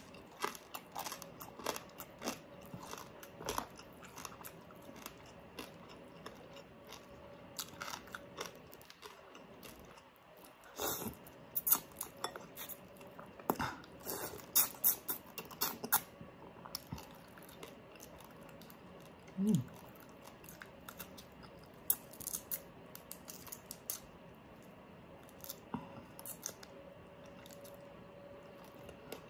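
Close-miked eating of baked crispy pata (pork knuckle) torn off by hand: irregular chewing, biting and crunching with wet mouth clicks and smacks. There is a brief hummed voice sound about two-thirds of the way through.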